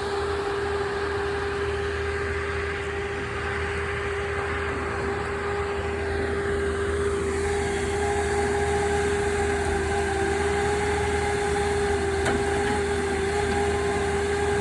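An engine running steadily at a constant speed, giving an even droning hum.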